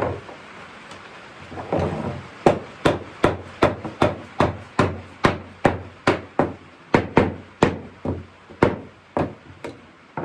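Hammer blows on oak, a steady train of about two to three sharp knocks a second starting a couple of seconds in, driving the parts of a small oak rocking chair together at their joints.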